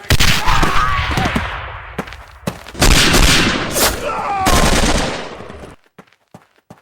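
Battle sound effects of rifle and machine-gun fire, dense and loud, cutting off suddenly about six seconds in, leaving only a few faint clicks.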